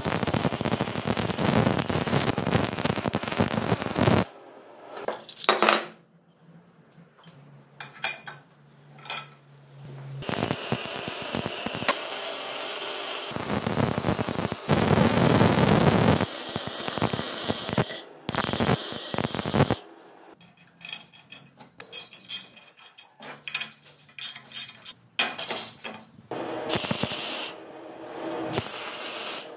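MIG wire-feed welder arc-welding steel square tubing, a steady crackle with spatter in runs of several seconds. Between the runs are pauses with scattered short clicks and taps, and near the end there are short bursts like tack welds.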